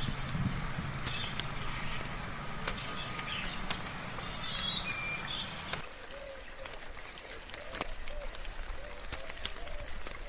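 Rainforest birds chirping and calling over steady soft rain with dripping. A low hum underneath stops abruptly about six seconds in, and a run of short lower calls follows.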